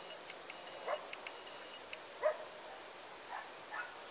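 A dog barking faintly: about four short single barks spread out, the second the loudest.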